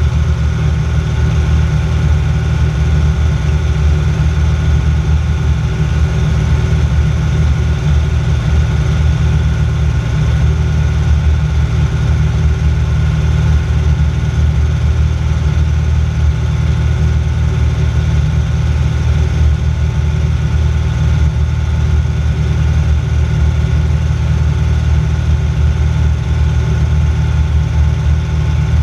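Aerocruiser light float plane's engine and propeller running steadily in level flight, heard from inside the cockpit cabin.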